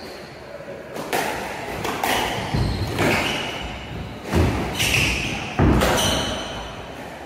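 Squash rally: sharp racket strikes and the ball's thuds off the court walls, about seven hits in five seconds at an uneven pace, each echoing around the enclosed court.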